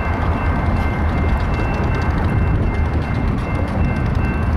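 A group of diesel-electric locomotives running light, with no cars, moving slowly. Their engines make a steady heavy low rumble.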